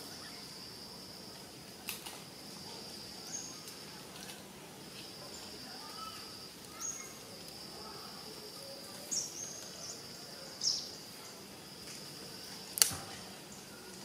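High-pitched steady insect drone that cuts out briefly a few times, with a few short high bird chirps and scattered sharp clicks. The loudest click comes near the end.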